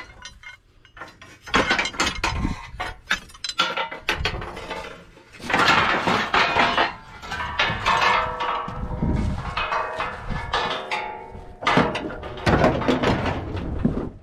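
Scrap steel clanking and scraping as bars and bumpers are pulled from a pile and handled, with repeated knocks and several ringing metallic clangs in the middle.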